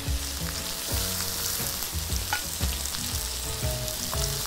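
Oil sizzling steadily on an electric griddle as battered, meat-stuffed shiitake mushroom jeon fry.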